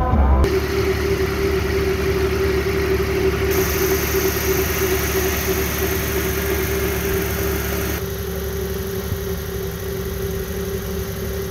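1991 Toyota 4x4 pickup's engine idling steadily with the hood up, a constant even hum.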